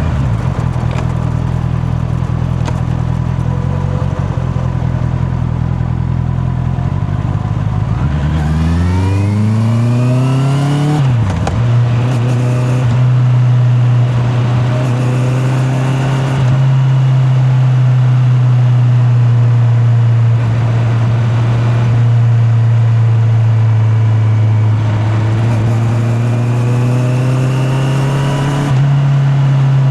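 Honda CB650R's inline-four engine under way: a steady drone at first, then revving up sharply about eight seconds in, a brief dip at a gearshift, and a steady cruise with a second, gentler rise in revs near the end. Heard from a microphone in the rider's back pocket.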